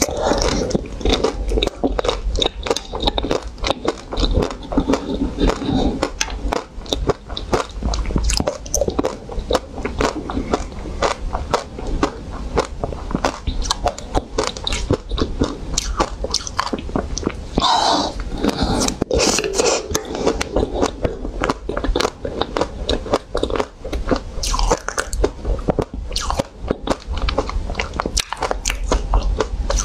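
Close-miked biting and chewing of an ice cream bar on a stick: a steady run of small crunches and mouth clicks.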